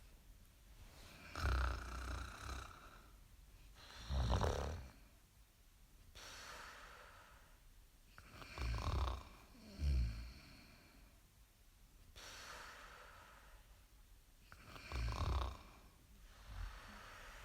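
Slow, steady snoring: a loud rasping snore every few seconds, some coming in pairs, with softer breathing in between.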